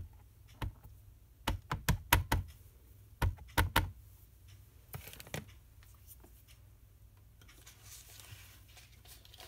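Quick runs of light taps and clicks: an ink pad being tapped against a rubber stamp to ink it in a yellow (Bumblebee) ink. The taps come in two bursts early on, with a couple more a little later.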